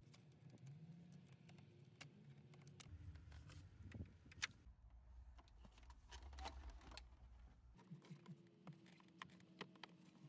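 Faint scattered clicks and light knocks of plastic interior trim being handled and unclipped, with one sharper click a little before halfway through, over a low steady hum.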